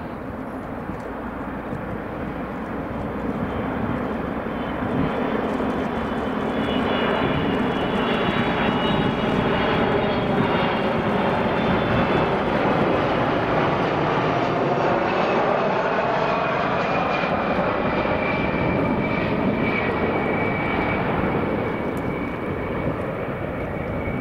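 Boeing KC-135R Stratotanker's four CFM56 (F108) turbofan engines on landing approach, a steady jet rumble with a high whine. It swells as the aircraft comes over, then eases off as it passes, the whine falling in pitch.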